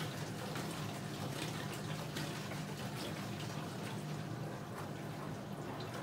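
Smeg DWAU157XT stainless dishwasher running a wash cycle: water sprays and sloshes inside the closed tub over a steady low pump hum, with small irregular splashes.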